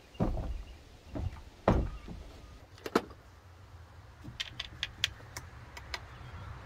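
Several dull thumps, then a sharp click and a run of light clicks over a low steady hum.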